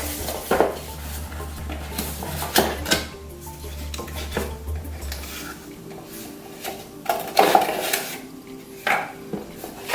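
Metal stand pieces being handled and set down, giving a few separate clinks and clanks like dishes knocking together.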